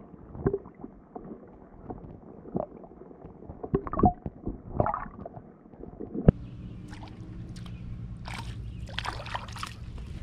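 Water gurgling and sloshing around a camera held under the lake surface, with scattered knocks. A sharp knock about six seconds in is followed by a steady low hum.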